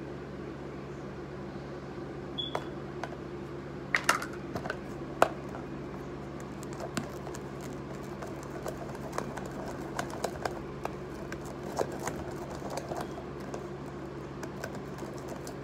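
A thin stick stirring slime in a clear plastic bowl, clicking and tapping irregularly against the bowl from about two seconds in, with the sharpest clicks around the fourth and fifth second.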